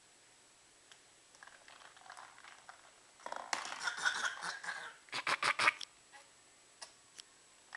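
A girl fake-coughing: one drawn-out raspy cough a little past three seconds in, then four quick short coughs in a row about five seconds in.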